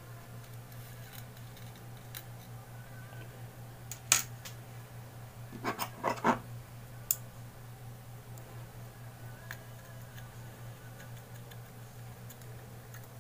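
Sharp clicks and taps of a Zippo lighter's metal case and insert being handled and taken apart: one loud click about four seconds in, a quick run of four clicks around six seconds, and one more a second later, over a steady low hum.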